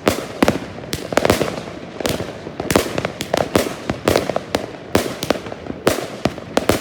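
Svea Fireworks 'Spartacus' battery cake (76 shots of 20–30 mm) firing in rapid succession: a dense run of launch thumps and aerial bangs, several a second, with crackle between them.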